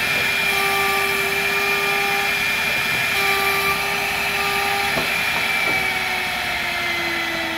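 Woodworking machine running with a steady, loud motor whine, extra tones cutting in and out every second or so. A couple of sharp knocks come about five seconds in, and near the end the whine slowly falls in pitch as the motor begins to wind down.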